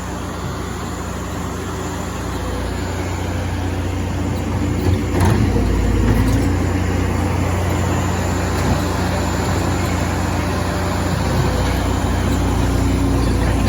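Skid steer engine running steadily and growing louder about five seconds in as it works, with a couple of short knocks.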